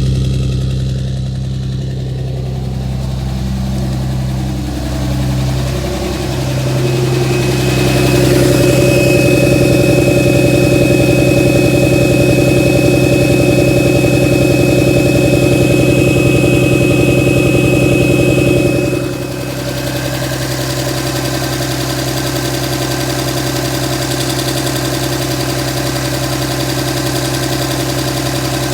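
5.9 Cummins inline-six turbodiesel in a 2007 Dodge Ram running at a steady idle, the rough idle the owner is asking about. A high steady whine joins about eight seconds in and stops at about nineteen seconds, when the engine sound gets a little quieter.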